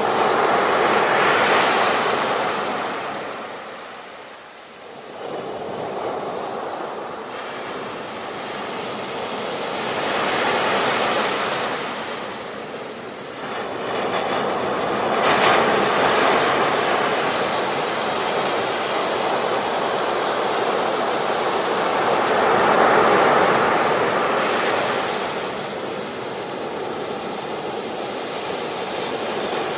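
Surf breaking and washing up a beach in slow, repeated swells, each rising and falling over several seconds, with a brief lull about four seconds in.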